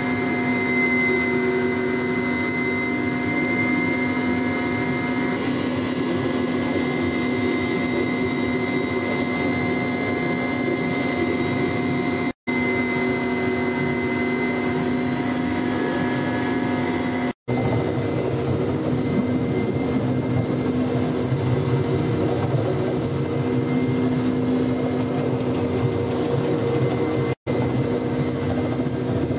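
Steady engine and rotor whine of an aircraft in flight, with constant pitched tones over a low rumble. It is broken by three brief cuts to silence, and the tone shifts slightly after the second cut.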